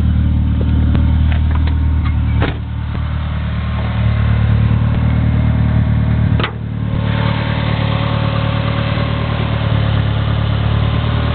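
Turbocharged 4G63 four-cylinder of a 1G DSM idling steadily through a 3-inch turbo-back exhaust with a dual-chamber Flowmaster muffler. Two sharp knocks come about two and a half and six and a half seconds in, and a hiss grows louder after the second one.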